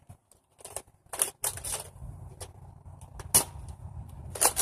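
Plastic Nerf blasters and gear being handled and set down: a series of sharp clicks and knocks, with a low rumble starting about a second and a half in.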